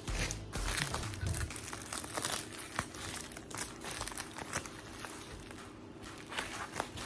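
Plastic packaging crinkling and rustling as it is handled during an unboxing, in irregular quick crackles, busiest in the first few seconds.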